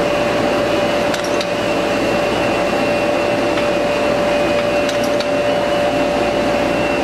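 Ultra Coat 1020 spot UV coater running steadily as printed sheets feed through, a constant machine drone with a steady whine and a few light clicks.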